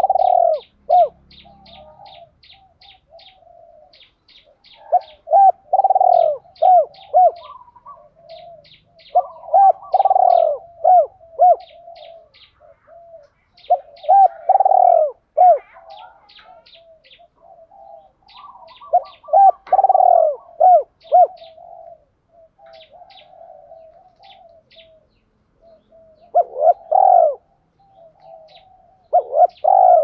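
Caged spotted dove, a lure bird, cooing. Its song phrases come about every four to five seconds, each a cluster of short coos with a longer, louder one among them. A rapid run of faint, high, thin chirps goes on between the phrases.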